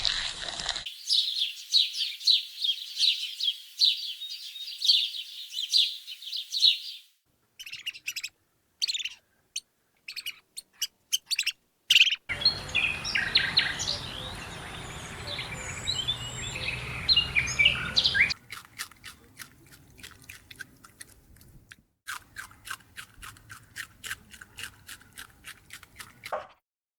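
Birds chirping in a string of short clips cut one after another: first dense high chirps, then scattered chirps, then chirping over a steady outdoor hiss, then a fast run of quick ticking chirps.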